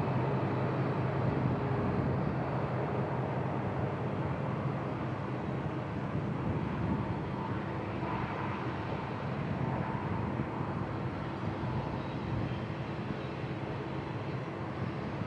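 Union Pacific freight train running past: a steady rumble with a constant low hum, slowly getting quieter.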